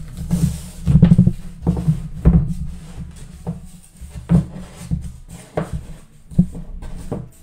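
Masking tape being peeled off the edges of a watercolour painting and crumpled, with irregular dull knocks and rustling as the board and paper are handled on the table.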